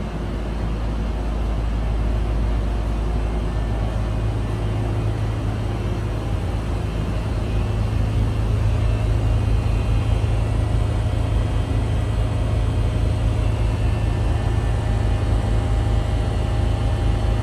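A steady low mechanical hum with a strong drone, slowly getting a little louder over the first few seconds.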